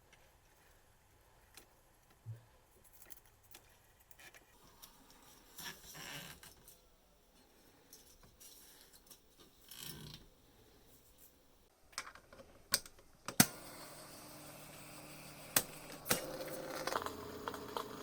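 Small clicks and knocks from the controls and mechanism of a vintage reel-to-reel tape recorder being handled, then a sharp click about two-thirds of the way through, after which its motor and tape transport run with a steady hum and held tones; another loud click about three seconds later adds further tones.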